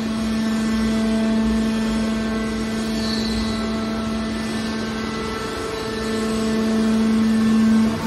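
Hydraulic scrap aluminum baler's power unit running with a steady hum as its ram pushes a compressed bale of aluminum wire out of the chamber. The hum grows louder over the last two seconds.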